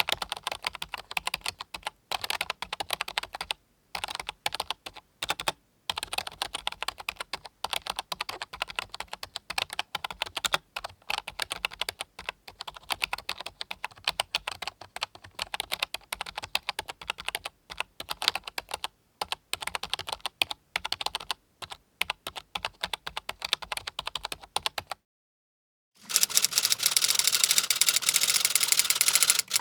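Typing on a computer keyboard: fast runs of key clicks with brief pauses. The typing stops about 25 seconds in, and after a second of silence a louder, denser run of key clatter begins.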